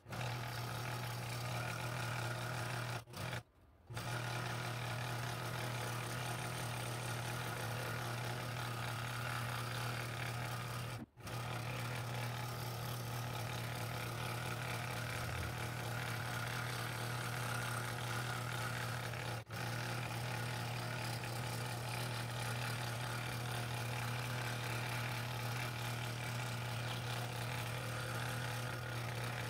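Scroll saw running and cutting an outline through a wooden box-lid blank: a steady motor hum with the sawing noise of the blade over it. The sound drops out briefly three times.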